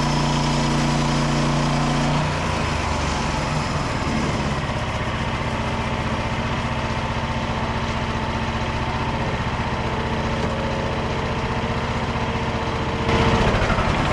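Frontier OS27 portable band sawmill running, its small petrol engine driving a 1.5-inch band blade through a larch log. The engine note shifts about two seconds in, and the sound grows louder briefly near the end.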